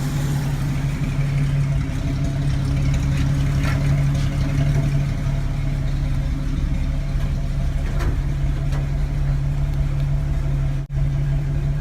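1964 Chevrolet C10 pickup engine idling steadily, with a brief dropout near the end.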